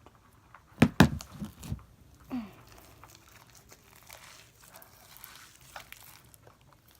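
Sticky homemade slime being squished and pulled by hand: a cluster of loud wet smacks about a second in, a short falling squeak a little after two seconds, then faint crackling.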